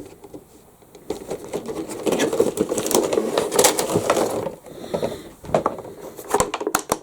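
Cardboard box and plastic packaging being handled. There is rustling and scraping for a few seconds, then scattered sharp clicks and taps near the end.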